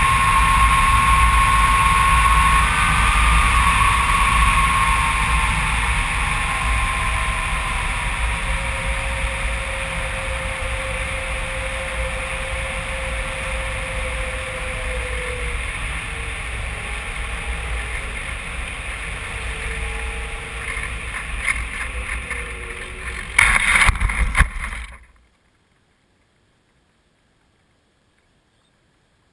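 Airflow rushing over the camera microphone on an RC glider in flight, slowly fading as the plane loses speed, with faint whining tones that slide down in pitch. About 23 seconds in, a short burst of loud bumps and scraping as the glider touches down in long grass, then the sound cuts off to near silence.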